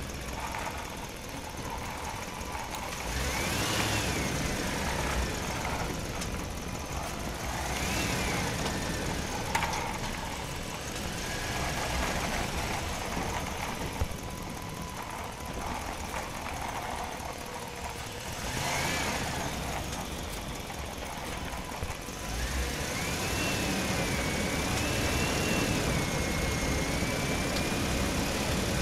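A vehicle engine running steadily, its pitch rising and falling several times as if revved, with a longer wavering stretch near the end.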